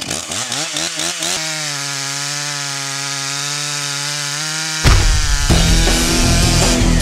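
STIHL MS 661 two-stroke chainsaw revving up over about a second and a half, then holding a steady high pitch as it cuts. Nearly five seconds in, a sudden louder, deeper sound with music takes over.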